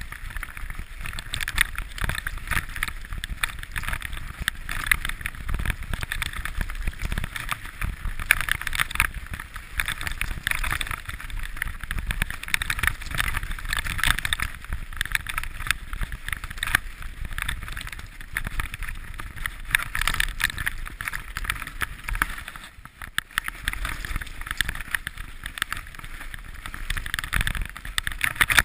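Mountain bike rolling fast over a gravel and dirt trail: tyre noise on loose stones with constant rattling and knocking of the bike over the rough surface, mixed with wind on the microphone.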